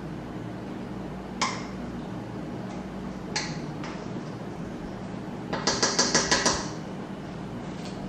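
A metal utensil scraping and knocking against a stainless steel mixing bowl as tomato sauce is scraped out of it. Single clinks come about a second and a half and three and a half seconds in, then a quick run of about eight taps about two-thirds of the way through, the loudest part. A steady low hum runs underneath.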